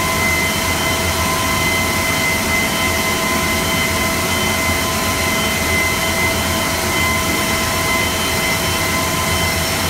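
CNC cutting machine running: a steady whine of several fixed tones over a low hum.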